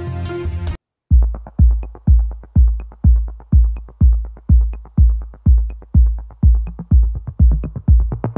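Background music: one track cuts off abruptly under a second in, and after a brief gap an electronic track starts with a heavy kick drum beating about twice a second.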